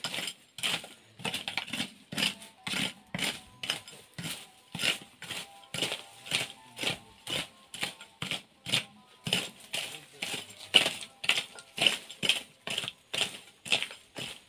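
A hoe chopping into soil and weeds, repeated short sharp strikes at about two a second.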